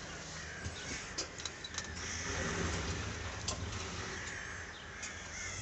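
Caterpillar C15 diesel engine idling just after start-up: a low, steady hum with a few faint clicks above it.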